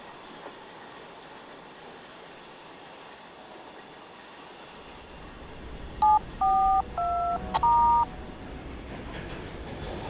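Norfolk Southern GE C40-9W diesel locomotive rolling slowly over the rails, its low engine rumble growing from about five seconds in as it draws near. About six seconds in, a quick run of four touch-tone (DTMF) keypad beeps with a short tick among them, louder than the train.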